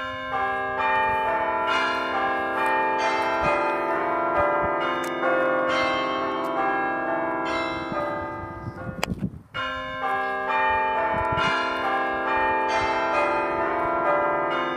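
Bell-like music: layered, sustained ringing tones entering one after another, with a short break about nine seconds in before they return.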